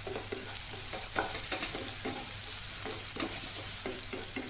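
Ripe nendran banana pieces sizzling in hot ghee in a nonstick pan while being stirred, the spatula scraping and turning them about twice a second over a steady frying hiss.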